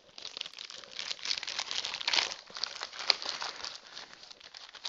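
Clear plastic packaging crinkling and crackling in irregular spurts as it is handled by hand.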